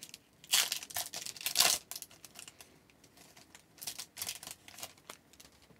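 A 2002-03 Topps hockey card pack wrapper being torn open and crinkled: two loud rustles in the first two seconds, then softer rustling and light clicks as the cards are handled.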